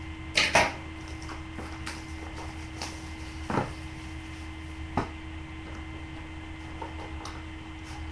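Handling noises as a sealed trading-card box is opened: a loud rustle of wrapper and cardboard about half a second in, then a few scattered taps and sharper knocks, over a steady electrical hum.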